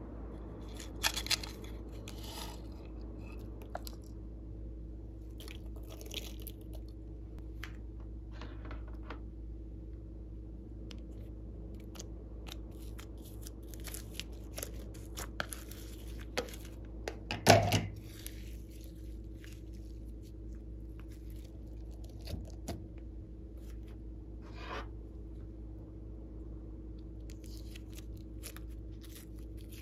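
Hands squeezing and stretching glossy slime, giving scattered sticky pops and crackles, the loudest a little past halfway, over a faint steady hum.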